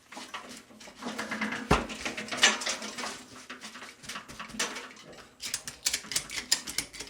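Ratchet strap being cranked tight, its ratchet giving a run of rapid clicks in the second half, with a knock and scattered handling clicks before that.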